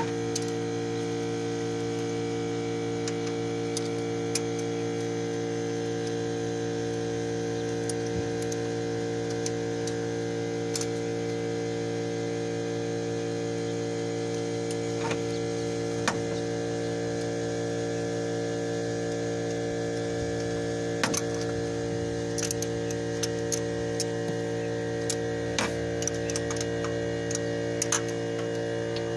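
A steady hum of several even tones throughout, with scattered light clicks and taps, sparse at first and more frequent in the last third, from work on the engine's intake manifold and valve cover bolts.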